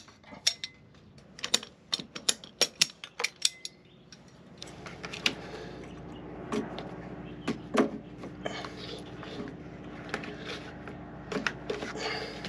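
A hand ratchet pipe cutter clicks in a quick run of sharp strokes as it cuts through blue plastic water line. After about four and a half seconds, scattered plastic clicks and taps follow as the pipe is pushed into push-fit John Guest fittings on a water-flow sender, over a steady low hum.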